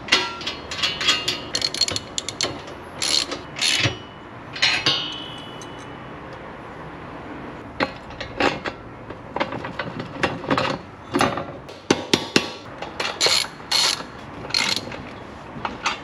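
Ratchet wrench clicking in short runs, with metal parts clinking, while bolts are tightened to fit a mini bike's handlebars and front end. The clicks come in bursts, with a pause of a couple of seconds near the middle.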